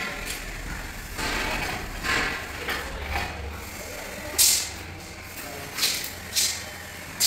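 A large porcelain floor tile being set down on mortar and shifted into line by hand with suction-cup lifters: a series of short scraping and rubbing sounds, the sharpest near the end, over a low steady hum.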